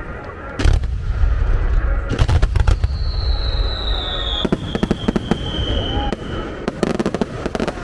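A fireworks starmine barrage: deep booms with a long rumbling echo and clusters of sharp crackling bursts. A high whistle glides slowly down in pitch from about three to six seconds in.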